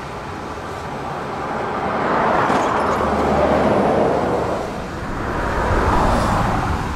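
Street traffic: cars driving past, the tyre and engine noise swelling to a peak about three to four seconds in, easing, then rising again about six seconds in as another vehicle passes.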